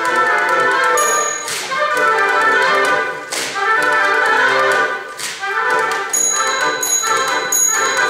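Oboe and bassoon band playing a brisk tune with a typewriter as the solo percussion instrument, its keys clacking along. Three sharp sweeping strokes cut through the music about two seconds apart.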